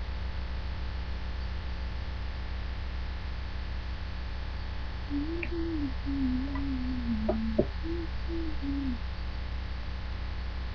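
Steady electrical mains hum picked up by a webcam microphone. From about five to nine seconds in, a faint low wavering tone is heard, broken into short pieces, with a small click near its end.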